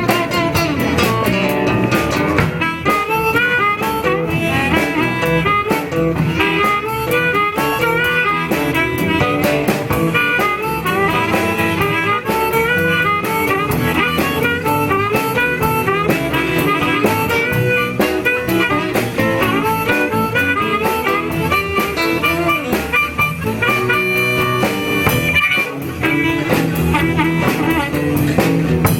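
Live blues band playing an instrumental break, a harmonica solo over guitar, bass and drums.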